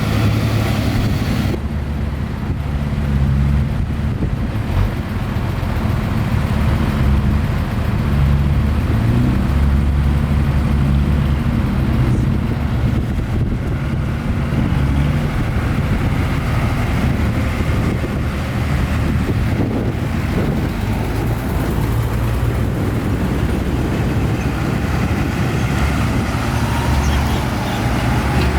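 Heavy diesel engine of earthmoving machinery running, its low note swelling and easing as the load changes.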